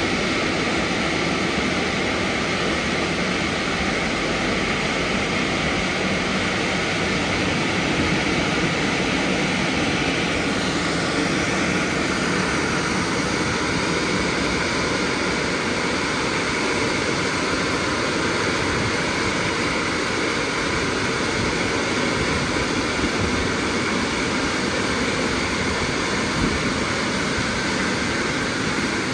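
Drying blowers of an Istobal M12+ rollover car wash, blowing through the fixed roof drying nozzle: a loud, steady rush of air whose tone shifts slightly about eleven seconds in.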